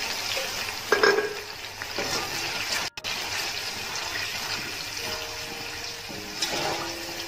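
Hot oil with fried onions and ginger in a steel pot sizzling as a little water is poured in from a glass, with a sharp splash about a second in, then a steel slotted spatula stirring and scraping the pot.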